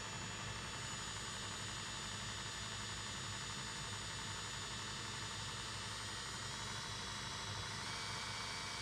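An electric woodworking power tool running steadily: an even whirring hiss with thin high tones over it, one of which steps up in pitch near the end.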